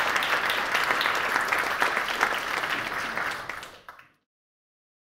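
Audience applauding, many hands clapping, fading and then cutting off to silence about four seconds in.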